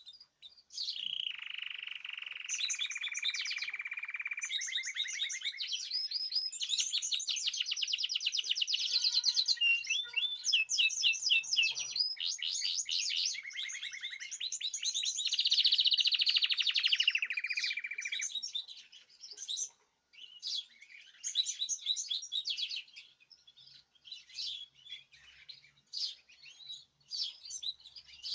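Caged songbirds singing together: a long run of rapid trills and rolling song that breaks off after about eighteen seconds into scattered short chirps.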